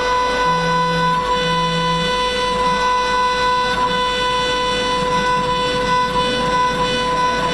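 Mini CNC router spindle running at a steady high-pitched whine while engraving a metal plate. A lower hum comes in twice, briefly, in the first two seconds.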